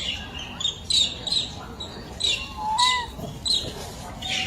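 Short, high-pitched animal chirps repeating two or three times a second, with one rising-then-falling whistled call about three seconds in.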